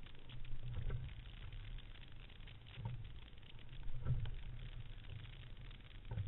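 Single rowing scull moving through the water, heard from a camera on its deck: a low rumble of water along the hull, with a dull thud and knock of the stroke every second or two, over light splashing and crackle.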